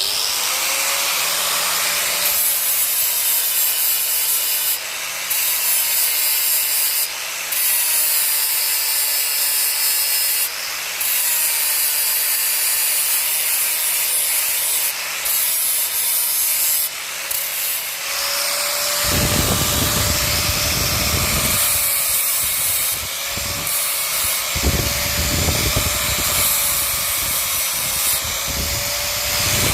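Angle grinder finishing a weld on metal: a steady motor whine under a loud abrasive hiss, briefly easing off every few seconds. About two-thirds of the way in, heavier low rumbling comes in and out.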